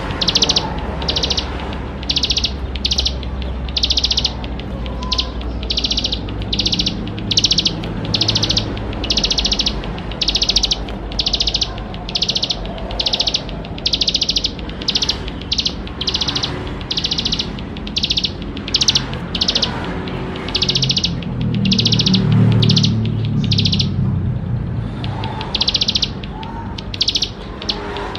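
Ciblek sawah, a small prinia, singing a fast, high song of short trilled notes repeated about two a second, with a brief pause near the end. A steady low hum runs underneath.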